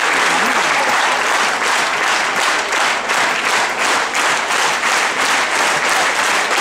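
Large crowd applauding. About a second and a half in, the clapping falls into a steady rhythm of roughly three claps a second.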